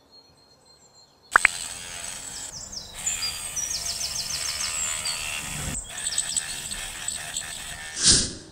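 Small handheld rotary tool switching on about a second in and grinding a slot into a thin wooden scale, with a steady high motor whine under the grinding. It pauses briefly and gets louder in a short burst just before it stops. Birds chirp in the background.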